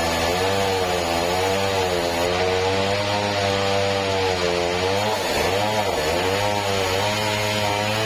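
An engine-driven sawmill running and cutting a meranti log. The engine's pitch sags under load and recovers, with the deepest dip a little past five seconds in.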